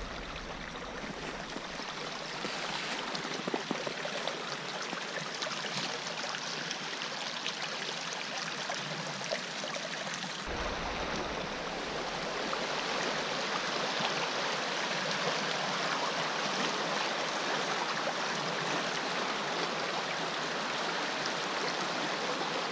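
Steady rushing of a creek running high and fast, swollen with snowmelt and rain after a thaw.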